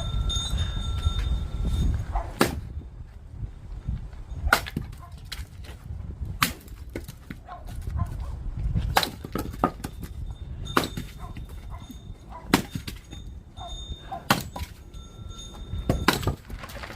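Axe splitting oak firewood: sharp chopping strikes about every two seconds, eight in all.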